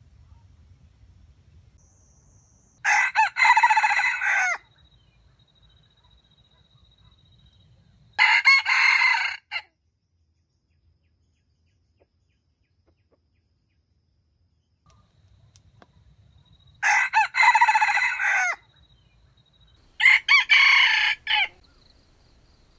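Red junglefowl rooster crowing four times, each crow lasting about a second and a half: two crows a few seconds apart early on, then two more near the end.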